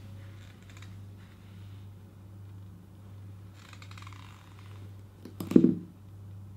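Rubber wellington boot pressing down on a bunch of green grapes in a plastic tub: faint crackling as the grapes give way, then one loud sharp pop with a dull thud about five and a half seconds in as grapes burst under the sole.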